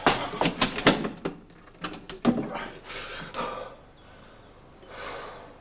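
A quick run of sharp knocks and clanks, about ten in the first two and a half seconds, followed by a few softer swishing noises.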